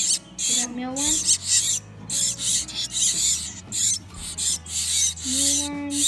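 Nestling titmice begging: rapid, high-pitched cheeping calls repeating several times a second. A short low hummed tone comes in twice, about half a second in and near the end.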